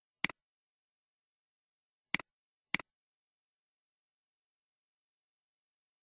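Computer mouse clicks against dead silence: one short sharp click just after the start, then two more about half a second apart a couple of seconds in.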